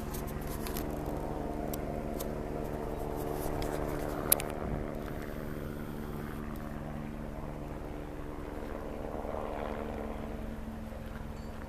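A steady engine drone, holding an even pitch, with one sharp click about four seconds in.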